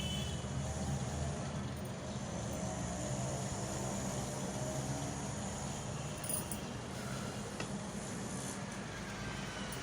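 Steady low background hum and rumble, with a couple of faint brief sounds in the second half.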